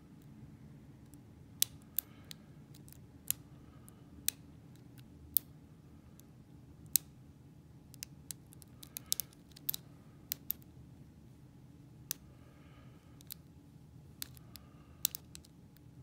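Sharp, irregular metallic clicks of a steel hook pick and tension wrench working the spool-pinned cylinder of an Abus Silver Rock padlock, with a quick run of clicks just past the middle. They are the small clicks of pins being lifted and set under light tension while the lock is picked.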